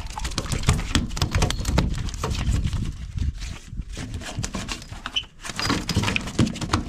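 A small bull shark flopping on a wooden dock, its body and tail slapping and knocking the wet boards over and over in quick, irregular thuds.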